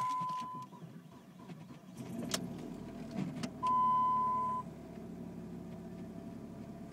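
2003 Dodge Neon's 2.0-litre four-cylinder engine cold-starting: a dashboard chime tone cuts off, then about two seconds in the engine is cranked with a click and catches. A second one-second chime sounds near the middle, and the engine settles into a steady idle.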